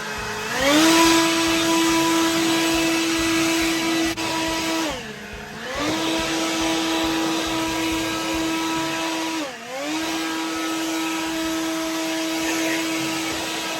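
Riding lawn mower's engine running steadily while mowing, its speed sagging and recovering twice.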